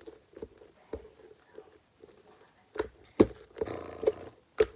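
Slime being squeezed and kneaded by hand: a few sharp wet pops, the loudest late on, and a longer squelch a little after halfway.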